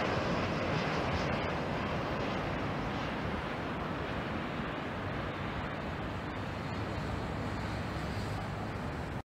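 Jet airliner noise, a steady rushing roar that slowly fades as the plane flies away, then cuts off abruptly near the end.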